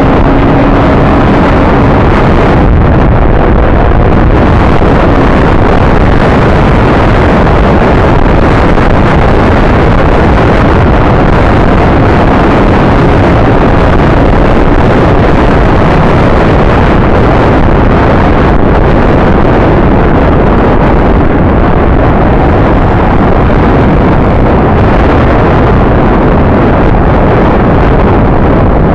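Loud, steady wind rush over the microphone of a camera riding on a moving scooter, with scooter engines running underneath.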